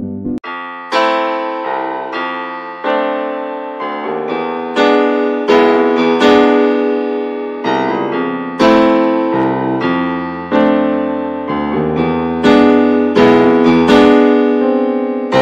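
Background music: a solo piano-like keyboard playing slow chords, each struck and left to fade, about one a second.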